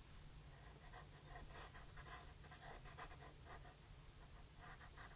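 Faint pencil strokes scratching on paper: a run of short, quick sketching strokes starting about a second in, over a low steady room hum.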